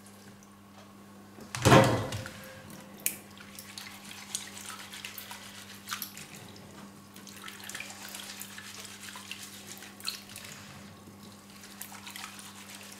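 Hands rubbing and swishing boiled chickpeas in a plastic bowl of water in a sink to loosen their skins: soft sloshing and splashing with small clicks. A single sharp knock near two seconds in is the loudest sound.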